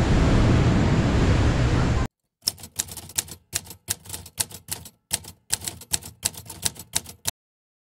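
Steady rushing, rumbling noise that cuts off abruptly into dead silence, followed by about two dozen quick, irregular typewriter keystroke clicks over some five seconds, an edited-in typing sound effect.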